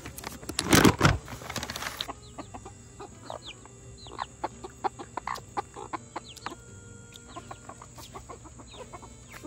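A treat bag rustling loudly for about the first two seconds, then a small flock of backyard chickens clucking, with many short soft calls, some falling in pitch.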